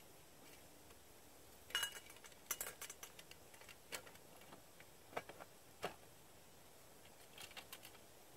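Light metal clinks of a steel billy pot's wire bail and the tripod's hanging chain being lifted and re-hooked over a campfire: a quick cluster of clinks about two seconds in, then single clinks spread through the rest, the last few near the end.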